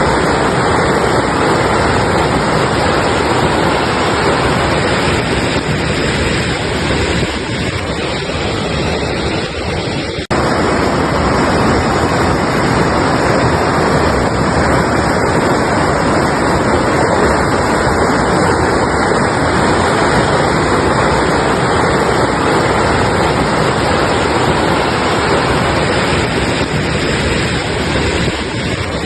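Mountain river rushing over rocks: a loud, steady wash of water noise with no let-up, broken only by a brief dip about ten seconds in.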